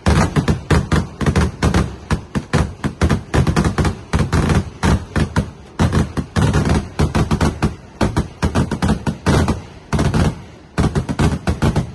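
Fireworks going off in rapid volleys, several sharp bangs a second almost without a break, with a short lull near the end.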